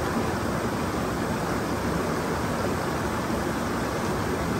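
Mountain creek (the Zigzag River) rushing steadily over rocks, running high with snowmelt.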